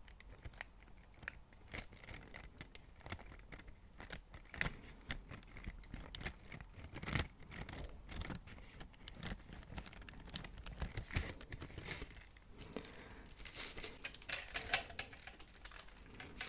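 Packaging handled close to the microphone: crinkling and tearing of wrapping, with many short taps and clicks.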